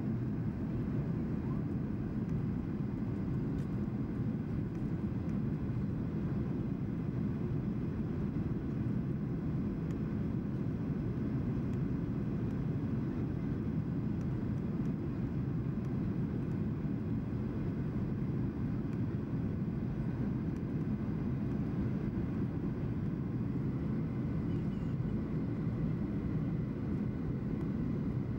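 Steady low cabin noise inside a Boeing 737-800 on approach with flaps extended: its CFM56 jet engines and the airflow over the fuselage make an even, unbroken low roar.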